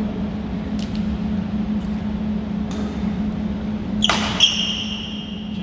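Badminton rally: sharp racket strikes on a shuttlecock, about a second in and near three seconds, then a harder hit about four seconds in that leaves a high ringing ping fading over a second or so. A steady low hum runs underneath.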